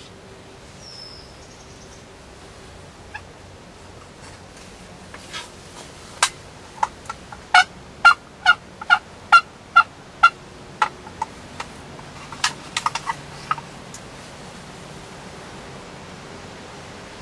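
Turkey calling: a series of about a dozen short, sharp notes about half a second apart, loudest in the middle of the run, then a few quieter notes trailing off.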